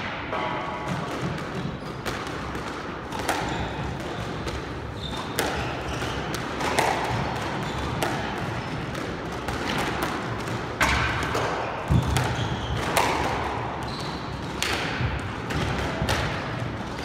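Squash rally: irregular, sharp smacks of the ball off rackets and the court walls, with brief high sneaker squeaks on the hardwood floor.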